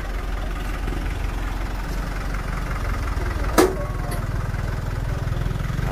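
A diesel engine idling steadily with a low, fast, even pulse. A single sharp knock stands out about three and a half seconds in.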